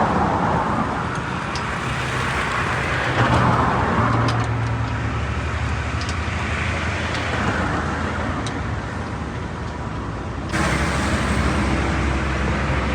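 Road traffic noise with a vehicle engine running steadily, and a few faint clicks. The sound changes abruptly near the end.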